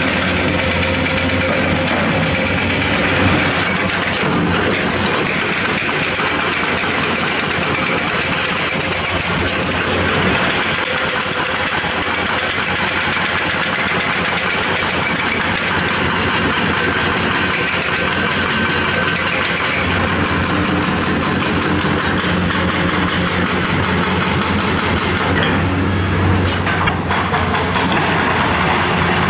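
Diesel engines of Komatsu hydraulic crawler excavators running steadily under digging load. The deep engine note swells near the start and again about two-thirds of the way through.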